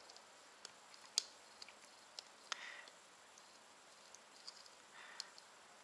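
Faint, scattered small clicks and brief rustles of hands handling wires and a roll of tape; the sharpest click comes about a second in.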